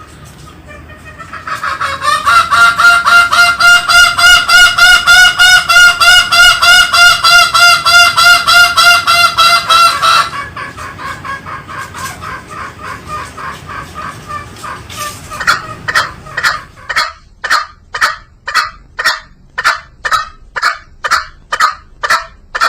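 Green junglefowl calling. A fast run of loud, honking notes, about four a second, lasts some eight seconds. Quieter notes follow, and from about fifteen seconds in comes a slower series of louder notes, about two a second.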